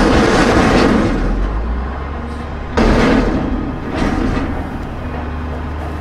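A truck engine sound effect running steadily with a low hum, and two louder surges of noise, one at the start and one about three seconds in.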